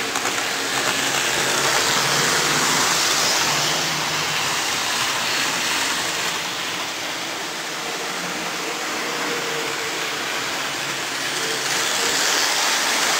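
Model trains running on the layout: a steady whirring rumble of small electric motors and wheels on track, with a faint motor whine. It grows louder near the end as a train passes close by.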